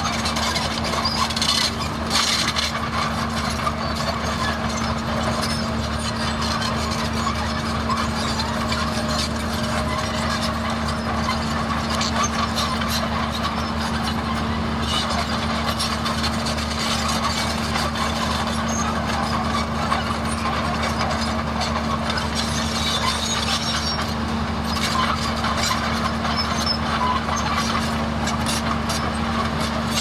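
Komatsu D31A crawler bulldozer's diesel engine running steadily under load, with track clatter as it pushes soil.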